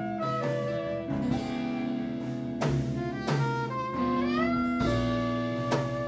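Instrumental jazz: guitar and saxophone playing over bass and drums, with a melody note sliding upward about four seconds in and a few drum hits.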